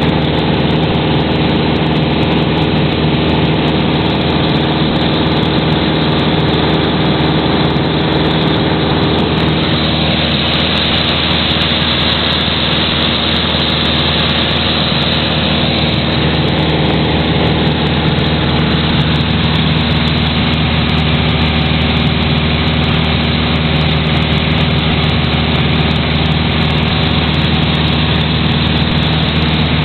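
Piper Archer's four-cylinder Lycoming engine and propeller droning steadily in cruise, heard inside the cockpit over a rushing hiss of air.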